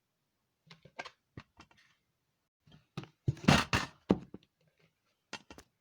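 Handling noises: several light clicks and knocks, then a louder, longer noisy burst about three and a half seconds in, and two more clicks near the end.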